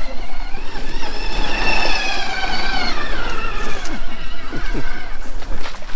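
Electric drive motor of an Outrider Coyote RWD recumbent trike whining as it passes. The whine rises in pitch over the first two seconds and falls away after, over a steady low rumble, with a few short knocks in the second half.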